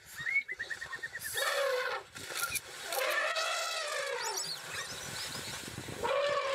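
High-pitched wild animal calls: a quick run of squeaks, then a long call that rises and falls in pitch, and a shorter call near the end.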